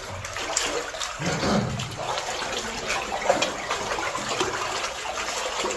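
Water splashing and sloshing in a flooded mine adit, with many small splashes over a steady wash of water.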